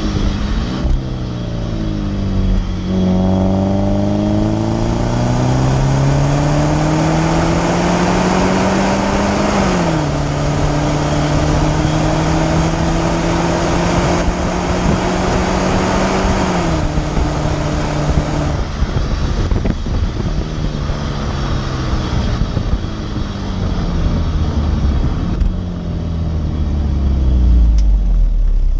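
Exhaust note of a BMW 318i's N46 four-cylinder petrol engine through an M-Sport exhaust, heard right at the tailpipe while driving. The engine note climbs under acceleration and drops sharply twice as the revs fall. It then falls away in a series of dips as the car slows, ending in a deep rumble.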